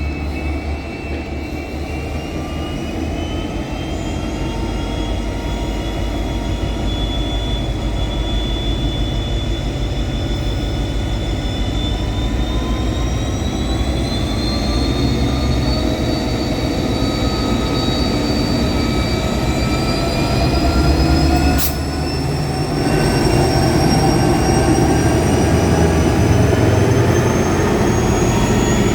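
Diesel locomotives of a heavy freight train powering up to pull away, a deep engine drone under a high whine that climbs steadily in pitch as the load comes on and the train gathers speed. One sharp knock about 22 seconds in.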